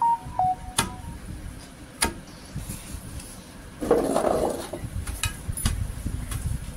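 Wooden pestle pounding damp pearl millet in a stone mortar: a few dull thuds at uneven intervals, with a brief scratchy noise about four seconds in. The grain is being pounded to loosen its husks.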